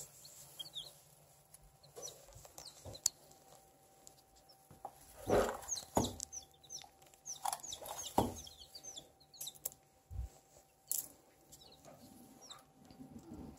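Baby chicks peeping: short, high, falling chirps in scattered clusters, with two louder noises about five and eight seconds in.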